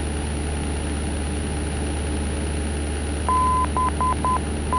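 Cessna 172's engine and propeller drone steadily through the cabin. From about three seconds in, the Brecon VOR's Morse code identifier beeps in a single high tone: a dash and three dots (the B of BCN), then the dash that opens the C.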